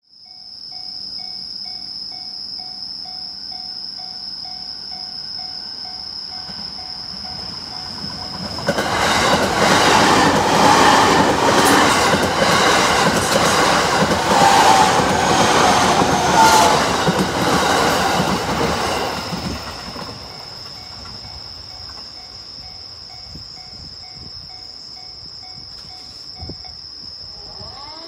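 Level crossing alarm ringing about twice a second, with a steady high tone under it. Then a Joban Line electric commuter train runs over the crossing for about eleven seconds in the middle, its wheels clattering loudly over the rail joints. The alarm keeps ringing after the train has passed.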